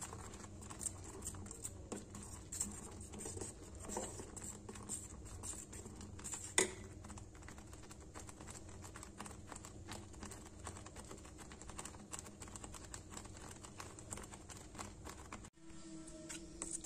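Oats porridge with peas simmering in a steel pan on a gas burner: a steady low burner rumble under irregular small pops and crackles from the bubbling porridge, with one sharper click about six and a half seconds in. The rumble stops shortly before the end.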